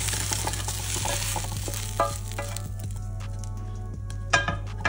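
Grilled vegetables sizzling in a hot, oiled grill pan as a wooden spatula scrapes them out onto a ceramic plate. The sizzle fades after about three seconds, with scattered clicks and a few sharp knocks of the spatula on pan and plate, the loudest near the end.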